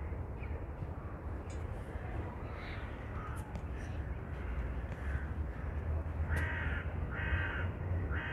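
Crows cawing, a run of short harsh caws about once a second in the latter half, with fainter calls before, over a steady low rumble.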